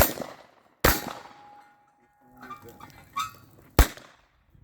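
Gunfire: two shotgun blasts about a second apart, then a lighter metallic clack and a third, sharper shot, a switch to the pistol after the two shells are spent.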